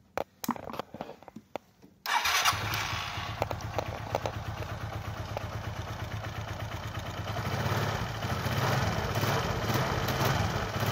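A few clicks, then a small motorcycle engine with a Tokaido carburettor starts abruptly about two seconds in and idles, getting louder near the end as the carburettor's throttle lever is opened by hand. The pilot screw is set at two and a half turns out, and a slight hesitation on opening the throttle is still there.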